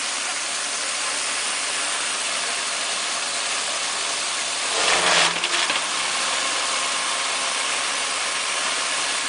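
Electric-motor-driven wood hammer mill running with a steady rushing noise. About five seconds in, a branch fed into the hopper is crushed in a louder, crackling burst lasting about a second, then the mill runs steady again.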